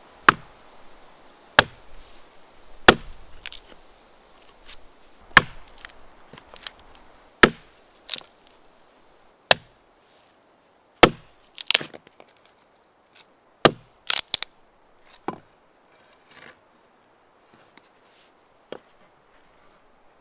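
An axe chopping and splitting small pieces of wood against a log, about a dozen sharp strikes a second or two apart. A few are followed by splintering cracks as the wood splits, and there are only a few light knocks near the end.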